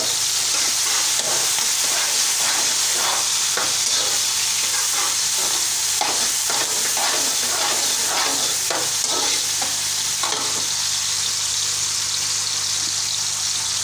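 Sliced onions and carrots sizzling in hot ghee in a steel wok, with a metal spatula scraping and turning them in repeated strokes that ease off about ten seconds in.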